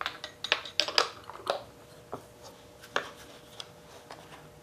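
Light metal clinks and taps of a 5/16 open-end wrench against the spindle and pad of an air dual-action sander as the sanding pad is being loosened. There is a quick run of clinks in the first second and a half, then a few spaced single taps.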